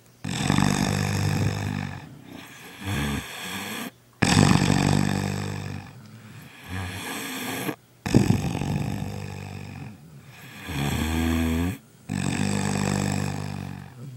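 A man snoring loudly, the microphone close under his nose. There are four long snores, and each of the first three is followed by a shorter one.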